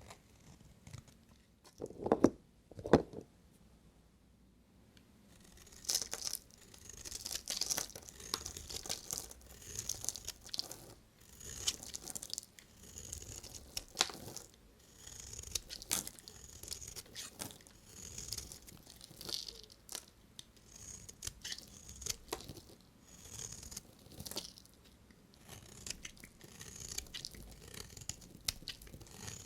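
Two sharp knocks about two and three seconds in, then a bar of soap being cut with a knife in a long series of short, repeated strokes.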